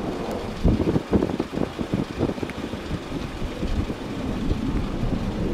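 Low rumble of a jet airliner's engines, with an uneven crackle over the first couple of seconds, mixed with wind buffeting on the microphone.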